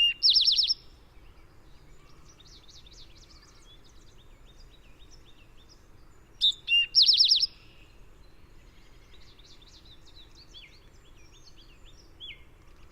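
Eastern towhee singing its "drink-your-tea" song, two clear notes followed by a fast trill, given twice about six seconds apart. Fainter songs of other birds run between the phrases.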